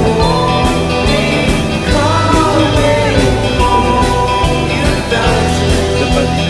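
Background music: a song with a steady beat, guitar and a sung melody.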